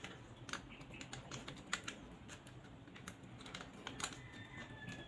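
Faint, irregular small clicks and taps of hand work on a plastic power outlet's screw terminals.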